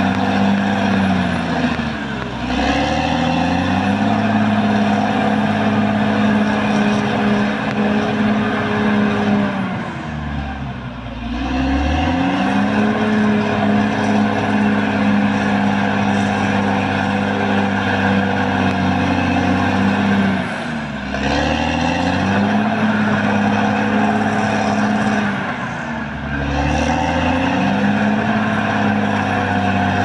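Caterpillar D6R XL bulldozer's diesel engine running hard. Four times its speed drops briefly and then climbs back.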